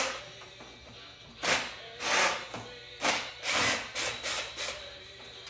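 A run of short, uneven knocks and scrapes of hard plastic and metal as a chainsaw's handlebar and housing are worked loose by hand, over background music.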